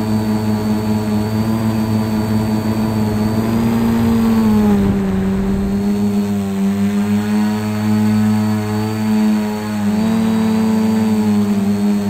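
Carbon-frame quadcopter's electric motors and propellers whining steadily in flight. The pitch drops about five seconds in and rises again about ten seconds in as the motors change speed.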